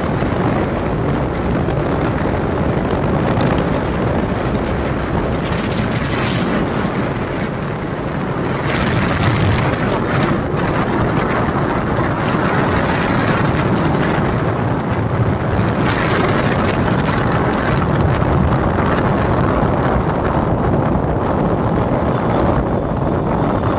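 Wind buffeting the microphone on a moving motorcycle: a steady rush with the bike's running noise underneath. It eases briefly about eight seconds in.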